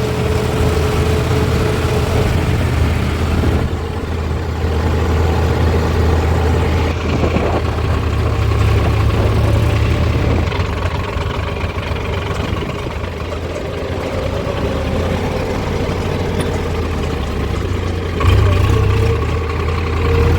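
Diesel engines of a backhoe loader and tractors running steadily at low revs, with the engine note shifting a few times and briefly rising near the end.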